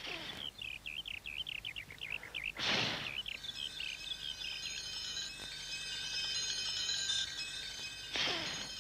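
Three breathy whooshes of a child blowing on a dandelion seed head: one at the start, the loudest about three seconds in, one near the end. Behind them, rapid bird-like chirping gives way about four seconds in to shimmering, sustained chime-like tones.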